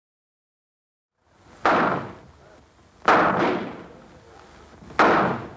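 After about a second of silence, three gunshots roughly a second and a half to two seconds apart, each a sharp crack with an echoing tail that dies away. Target shooting at a prickly-pear cactus.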